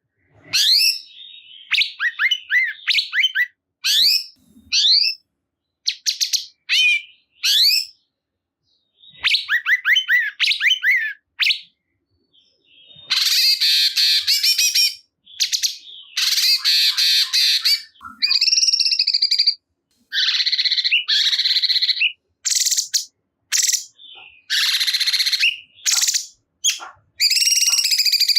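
Cungkok songbird singing loudly: series of quick, sharply rising whistled notes, giving way about halfway through to longer, harsh, buzzy chattering phrases.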